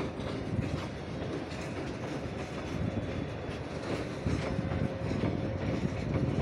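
Open-top freight wagons of a goods train rolling past: a steady rumble of steel wheels on the rails with repeated clicks as the bogies run over the rail joints.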